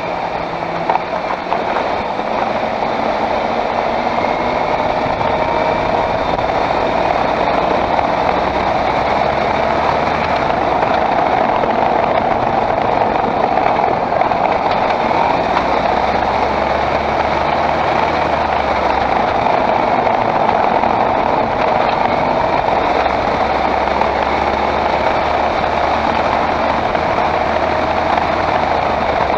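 2013 Skoda Octavia 1.8 TSI running, a steady drone of engine and road noise with a low hum that comes in about halfway through.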